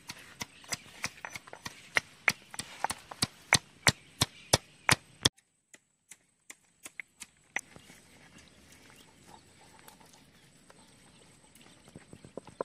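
Pestle pounding spices by hand, sharp knocks about three a second, stopping suddenly about five seconds in. After that a knife scores raw chicken, with only faint, scattered taps of the blade against the plate.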